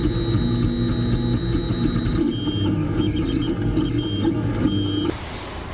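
Printrbot Simple Metal 3D printer printing in PLA: its stepper motors whine in short tones that change pitch every fraction of a second as the print head moves. The whine cuts off suddenly about five seconds in.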